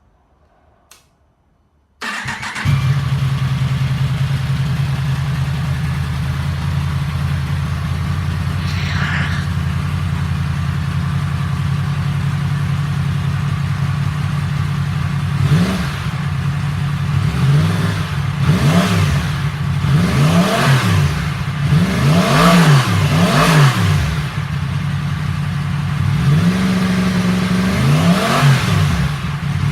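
Yamaha MT-10's crossplane inline-four engine starting about two seconds in and settling into a steady idle. From about halfway it is blipped repeatedly, several quick revs in a row that rise and fall, with one more rev near the end.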